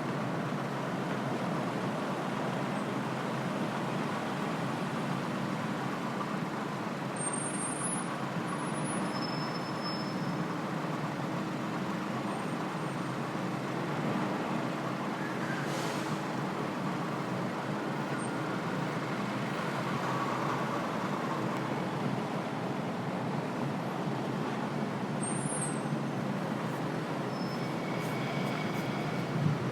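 City street traffic: a steady wash of passing vehicles. A short hiss comes about halfway through, and a few faint high squeaks are heard.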